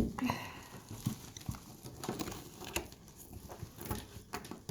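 Hands handling and working at packaging: crinkling and rustling with irregular taps and clicks, and a sharp knock right at the start.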